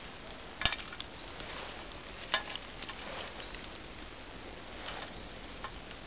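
Small wood fire of twigs and birch bark crackling in a perforated metal hobo stove, with scattered small snaps and two sharp clicks, one under a second in and one about two and a half seconds in.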